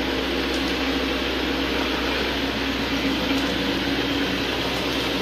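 Carpet-cleaning equipment running with a steady hum and hiss, holding one even pitch without change.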